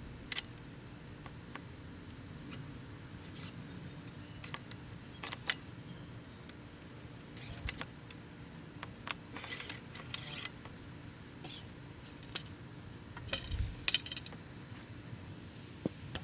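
Scattered clicks, clinks and short rustles of metal loading gear being handled while a .45-caliber muzzleloader is reloaded at the bench; the sharpest knock comes about twelve seconds in.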